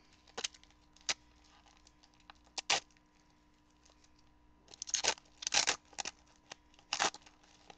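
Football trading cards being handled and slid against each other: scattered short clicks and swishes, then three louder papery rustles in the second half.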